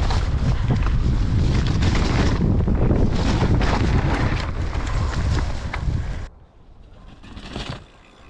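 Wind buffeting the microphone over the rumble and rattle of a mountain bike riding fast over rough, rutted ground. It cuts off suddenly about six seconds in, leaving a much quieter stretch with a few faint knocks.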